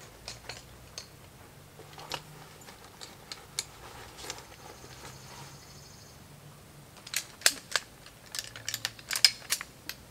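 Sharp clicks and snaps from the ratchet straps and hardware of a suspended tree tent being handled and adjusted. A few come scattered, then a dense run of louder clicks starts about seven seconds in.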